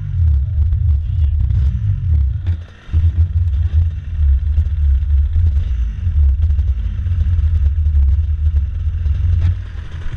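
Racing kart engine idling with an uneven, choppy low beat, dipping briefly about three seconds in.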